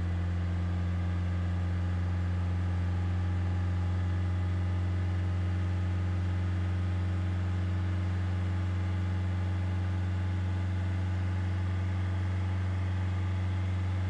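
2020 Ford Transit's diesel engine idling steadily at an unchanging speed, warming up before a forced DPF regeneration.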